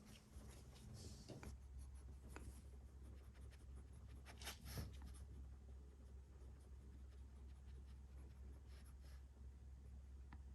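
Faint scratchy rubbing of a dog shamoji stroking a Pekingese's fur, in several separate strokes, over a steady low hum; no growling.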